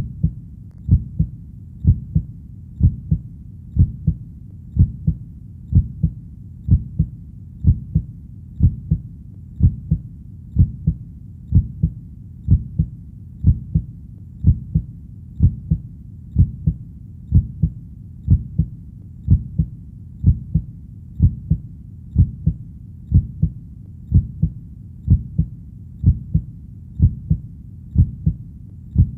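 Heartbeat beating steadily and evenly at about one beat a second, each beat a low double 'lub-dub', over a constant low rumble.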